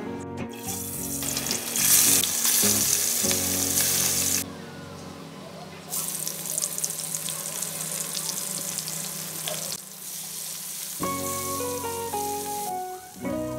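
Sliced onions frying in hot oil in an aluminium kadai, stirred with a spatula: a loud sizzle that drops to a quieter steady sizzle about four seconds in. Background music plays throughout.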